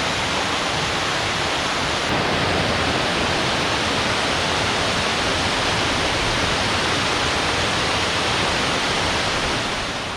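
Waterfall running high after heavy rain: a steady, loud rush of falling water that gets a little louder about two seconds in.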